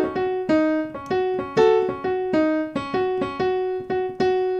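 Piano playing the F-sharp major blues scale one note at a time, about two notes a second, moving up and down: the F-sharp major pentatonic on the black keys with the flattened A added as the blues note.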